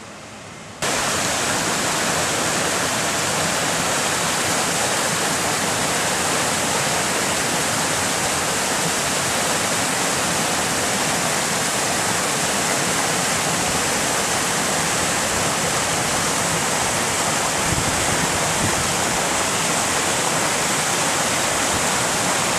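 Floodwater rushing past in a steady, loud roar of moving water that cuts in abruptly about a second in.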